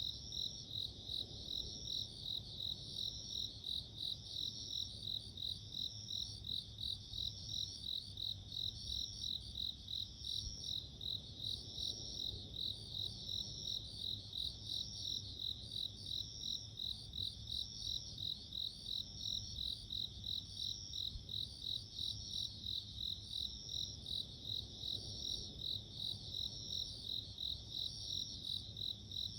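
Japanese bell crickets (suzumushi) chirping continuously, a high ringing song pulsing about twice a second, with a second, slower pulsing song a little higher in pitch.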